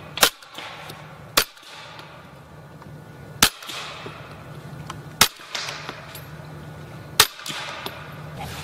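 Five suppressed shots from a Marlin Camp 9 carbine, a 9mm rifle, fired one to two seconds apart. Each shot is a short, sharp crack with a brief echo after it.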